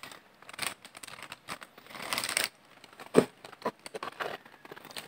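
Paper burger wrapper crinkling and rustling in short bursts as a burger is handled and bitten into.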